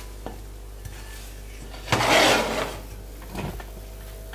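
A spoon scooping chicken and vegetables out of a frying pan and laying them onto a ceramic serving dish: a few light clicks, then one louder scrape about two seconds in and a softer one near the end.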